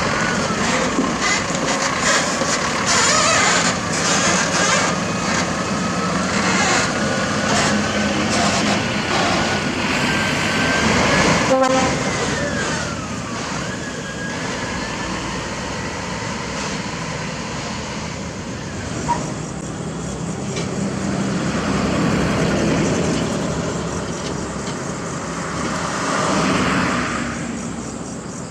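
Heavy diesel vehicle running steadily, with high squeals and rattles over the engine. The sound swells twice in the second half.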